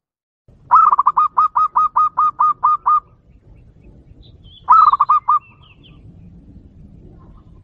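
Zebra dove (perkutut) singing its clear, sharp staccato lure song, the 'jontrot' call used to excite and draw in wild males. A fast run of about a dozen clipped coos lasts some two seconds, and a shorter burst of about six follows a couple of seconds later. Faint high chirps from another bird come in between.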